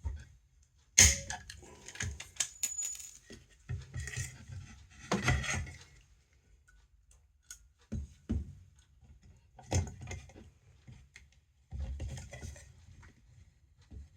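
Small metal parts and a hand tool clinking, tapping and clattering in separate bursts, with a sharp metallic clack about a second in.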